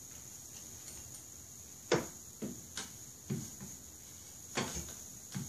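A few scattered light knocks and clicks, like small objects being handled and set down, the first about two seconds in and the loudest, over a faint steady high-pitched whine.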